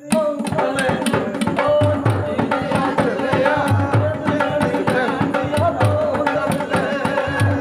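A man sings into a microphone over hand-drumming on an upturned aluminium cooking pot: a steady, fast rhythm of sharp strikes with deep bass strokes falling in pairs.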